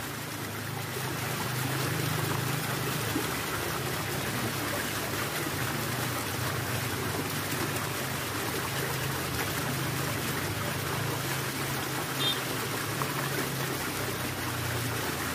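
Steady sound of running water trickling and pouring, with a low steady hum beneath it.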